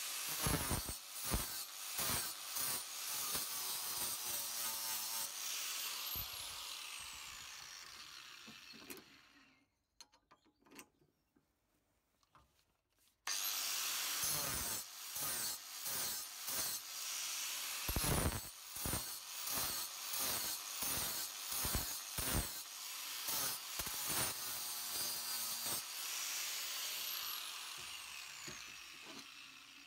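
Angle grinder with an abrasive disc grinding and bevelling an aluminium horseshoe insert piece to prepare it for welding, with many short grinding strokes. It fades away about nine seconds in, leaving a few seconds with only light clicks, starts again abruptly about thirteen seconds in, and fades away again near the end.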